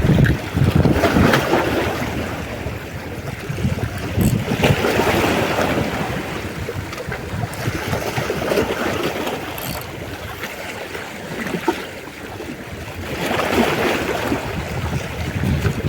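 Sea waves washing in, swelling every few seconds, with wind buffeting the microphone.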